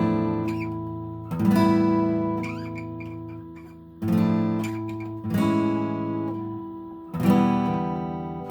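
Washburn WD11S acoustic guitar strummed in slow single chords: five chords struck, each left to ring out and fade before the next.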